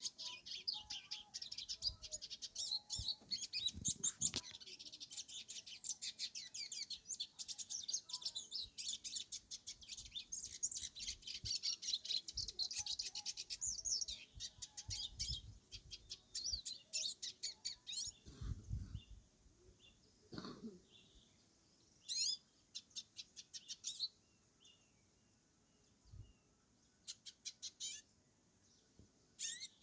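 Hooded siskin (pintassilgo) singing: a long, fast, high twittering song, continuous for more than half the time, then breaking into shorter separate bursts.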